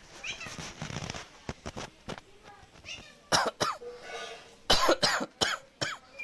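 Short, sharp cough-like bursts of a person's voice, several in quick succession in the second half, with a few clicks between them.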